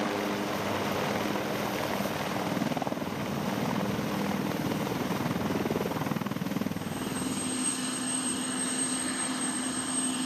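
Twin-turbine UH-1Y Venom helicopter running with its four-blade rotor turning, a steady thrumming hum. About seven seconds in, a thin high turbine whine comes in over it.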